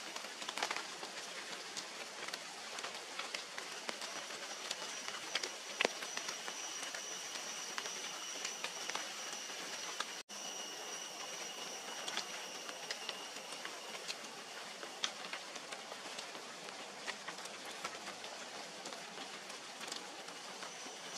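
Steady tropical forest ambience: an even hiss with a high, thin insect drone that comes in about four seconds in, fades for a while and returns near the end. Scattered light clicks sit over it.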